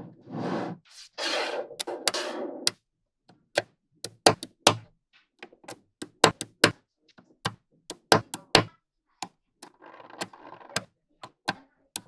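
Small magnetic balls clicking as they snap onto one another, a string of sharp separate clicks at an uneven pace. Near the start and again around ten seconds in come stretches of rattling, about a second each, as the balls clatter together.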